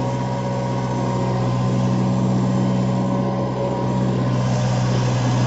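Kubota MU4501 tractor's four-cylinder diesel engine running steadily under load while pulling a two-bottom reversible mouldboard plow through the soil.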